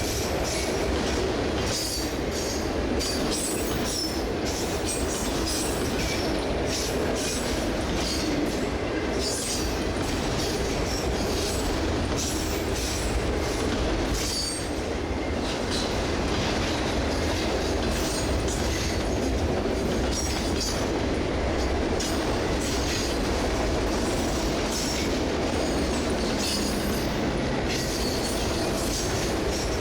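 Freight cars of a CSX manifest train rolling past steadily: a continuous rumble of steel wheels on rail, with many short, high-pitched wheel squeals throughout.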